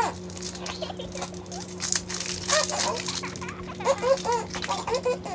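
A young child's few short, wordless vocal sounds, little hums and squeaks that bend up and down, made with a lollipop in her mouth, over a steady low hum.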